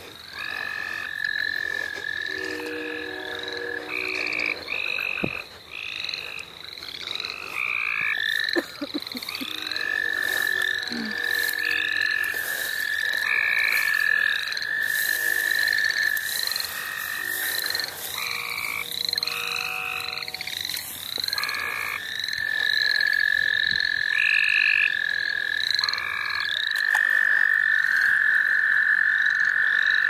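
A spring chorus of calling frogs: long, high, steady trills that stop and start, the longest running through the last several seconds, over shorter calls repeated about once a second.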